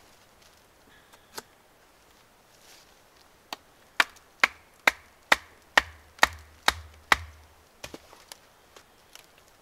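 A fixed-blade knife chopping into a slab of dead wood: about eight sharp chops, roughly two a second, starting a few seconds in and stopping about three seconds later, with a few lighter taps before and after.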